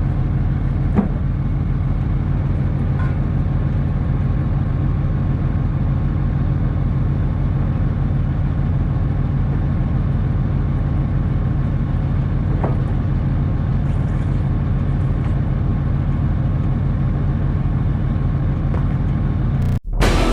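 Vehicle engine running steadily with a low, even drone, as when cruising at constant speed, with a few faint clicks. It cuts off abruptly near the end and music starts.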